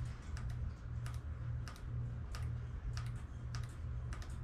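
Shimano XT M8020 hydraulic brake lever being squeezed and released over and over during a bleed, pumping to push air bubbles out through the funnel. It gives quick light clicks, often in pairs, about twice a second, over a steady low hum.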